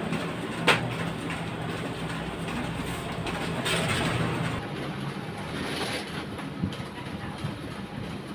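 Large office photocopier running a copy job, a steady mechanical hum with the clatter of paper feeding through. A single sharp click about a second in.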